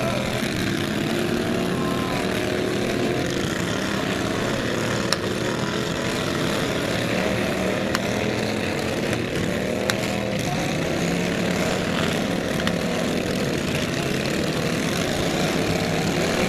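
Several small lawn mower engines running at once in a mower race, their pitches rising and falling as they rev. A few sharp knocks cut through, about a third and about halfway through.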